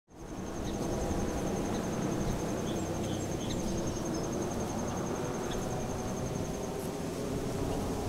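An insect trilling steadily at a high pitch with a fine, fast pulse, over a low, even rumble of outdoor background noise; a few faint short chirps come through a few seconds in.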